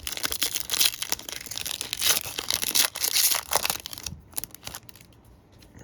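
Crinkling and tearing of a trading-card pack wrapper being ripped open and handled. The crackles are dense for about four seconds, then thin out and fade.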